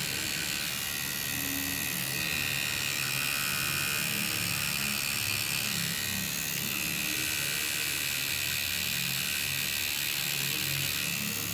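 Electric tattoo machine buzzing steadily as the needle works ink into the skin of a forearm.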